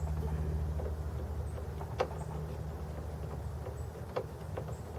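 A few separate sharp clicks of a metal wrench working the 10mm bolt on a tailgate strut, over a steady low hum.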